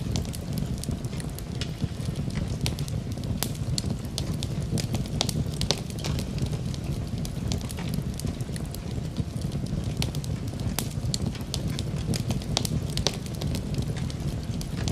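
Cooking fire crackling: irregular sharp pops and clicks over a steady low rumble.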